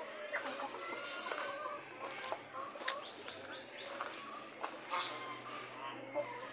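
Caged chickens clucking, with short falling bird chirps about three to four seconds in and a few sharp clicks, over a steady high whine.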